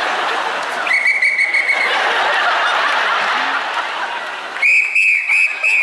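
A whistle blown over a murmuring audience: one held, clear blast about a second in, then a run of about six short blasts near the end.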